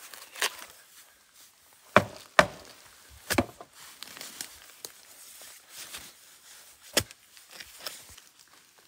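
Blade chopping at a bamboo shoot: a handful of sharp strikes at irregular intervals. The loudest two come close together about two seconds in, a double strike follows a second later, and a single one near the end.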